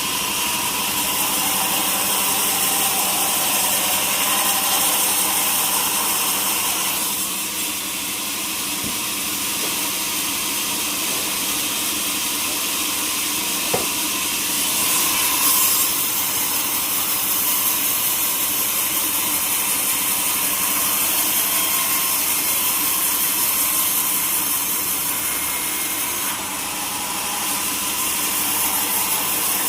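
Sawmill saw running through a hardwood log: a continuous, even cutting noise over a faint steady machine hum. It shifts in tone a few times, and there is a single short knock about halfway through.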